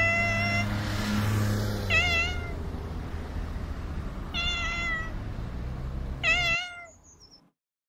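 Cat meowing four times, roughly two seconds apart; the calls are drawn out, and some waver in pitch.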